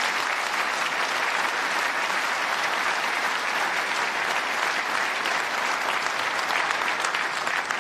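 An audience applauding: many people clapping at once, steady in level.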